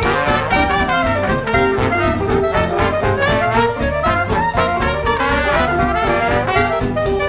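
Upbeat brass-led jazz music with trumpet and trombone, in a swing style with a steady beat.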